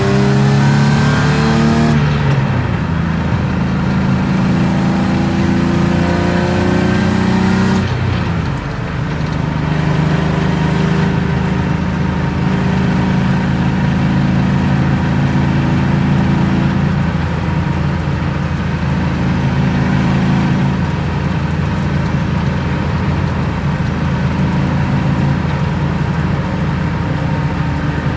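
BMW E36 325i's M50B25 2.5-litre straight-six, with aftermarket headers and exhaust, heard onboard. Its revs climb over the first couple of seconds and then hold. About eight seconds in they drop sharply, and the engine then runs at steady, lower revs.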